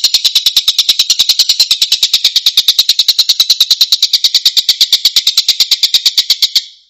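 A tengkek's harsh rattling call in a tight series of rough notes, about eleven a second, stopping abruptly near the end.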